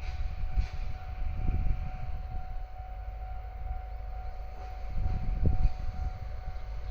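DE10 diesel-hydraulic locomotive and its train rolling by: a low rumble with irregular heavier thumps, and a steady high tone held over it.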